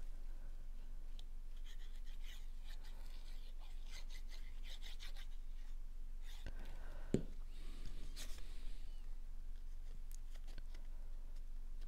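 Faint scratching and rubbing of a glue bottle's nozzle tip drawn across cardstock, with light paper handling, and one sharp knock on the table about seven seconds in as the bottle is set down.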